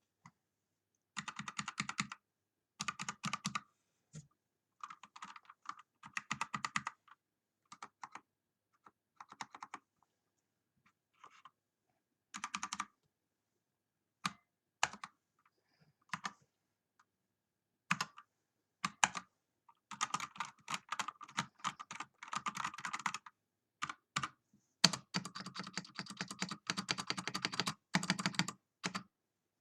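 Havit 65% mechanical keyboard being typed on. The keys clatter in short bursts at first, then come as scattered single presses, and near the end as fast continuous typing.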